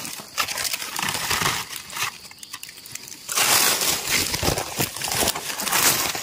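Dry fallen leaves crackling and rustling as someone moves and steps through forest leaf litter, louder in the second half.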